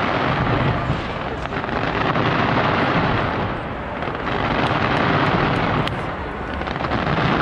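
Fireworks going off in a dense, continuous barrage: a steady wash of noise with scattered sharp cracks, swelling and easing every couple of seconds.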